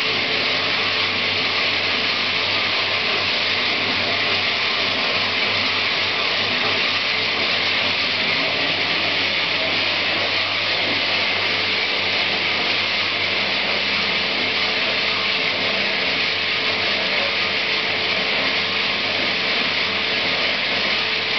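Homemade bandsaw with bicycle-wheel pulleys running under its electric motor: a steady hum with the hiss of the moving blade, unchanged throughout.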